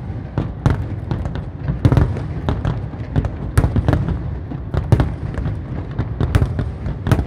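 Aerial fireworks display: a dense, irregular run of sharp bangs from bursting shells, several a second, over a continuous low rumble.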